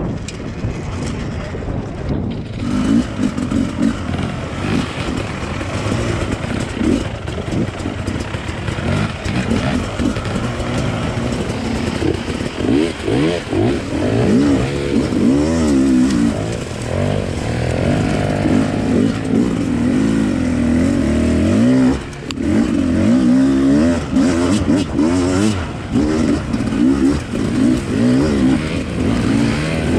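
Enduro motorcycle engine being ridden hard, its pitch rising and falling over and over with throttle and gear changes. The engine briefly drops off about two-thirds of the way through.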